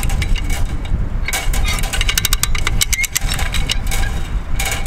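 Come-along cable puller ratcheting as it stretches a strand of barbed wire tight: runs of quick metallic ratchet clicks, a long run about a second in and another near the end. Heavy wind rumble on the microphone underneath.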